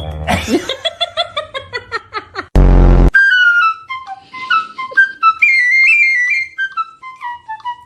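Edited-in sound effects and music: a pitched tone sliding down for about two seconds, a very loud short blast at about two and a half seconds, then a whistled tune of short stepping notes.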